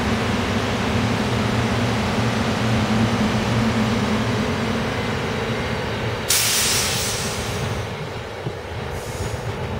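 SEPTA Silverliner IV electric commuter train running along the track and pulling away, a steady rumble of wheels on rail with a low electric hum that slowly fades. About six seconds in a sudden rush of hiss lasts a second or so, with a shorter, fainter one near the end.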